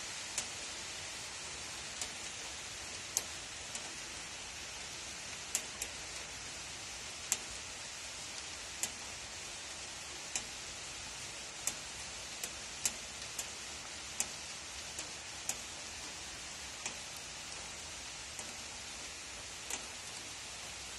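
Heavy rain pouring down steadily with a hiss, broken by scattered sharp ticks at irregular intervals.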